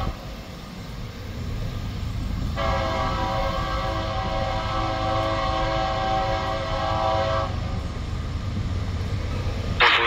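Freight locomotive's air horn: a chord that stops right at the start, then sounds again steadily for about five seconds from about two and a half seconds in, over the low rumble of the train. A sudden loud burst of noise comes right at the end.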